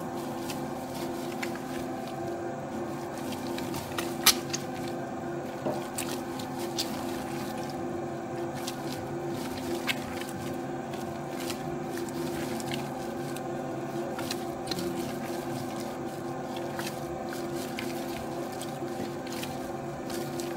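Spiral dough mixer running steadily, its motor humming while it kneads a soft, 70%-hydration dough in the steel bowl. Irregular wet slaps and squelches of the dough come through, with an occasional sharp click, the loudest about four seconds in.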